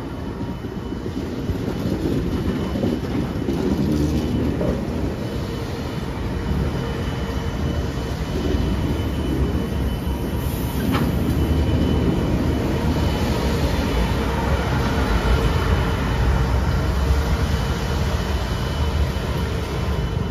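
Kawasaki M8 electric multiple-unit commuter train rolling along the platform and slowing to a stop, with steady wheel-on-rail noise that grows louder over the first few seconds. One sharp click about eleven seconds in.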